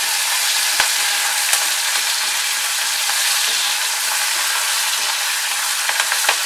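Sliced onion, garlic, green chilli and ginger sizzling steadily in hot oil in an aluminium kadhai as a wooden spatula stirs them, with a few light knocks, about a second in and again near the end.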